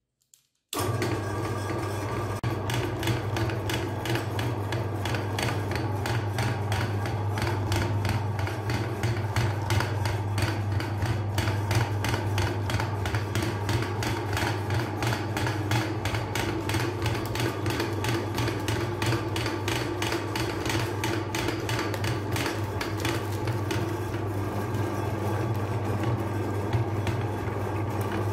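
Electric meat grinder switched on with a click under a second in, then running steadily: a strong low motor hum with a fast, even rattle from the gearing and auger.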